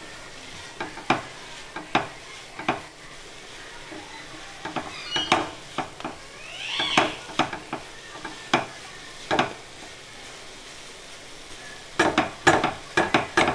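A spatula scrapes and taps around a nonstick frying pan as a grated paneer and onion mixture is stirred, over a faint steady sizzle. The strokes come irregularly, with a quick run of them near the end. A brief rising high squeal comes about seven seconds in.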